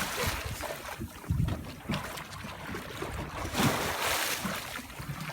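Wind buffeting the microphone, with water sloshing against a small boat's hull; the rush swells louder twice, the second time about three and a half seconds in.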